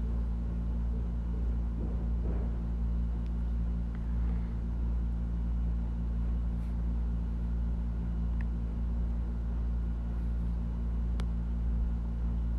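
A steady low machine hum with several constant tones, and a single faint click about eleven seconds in.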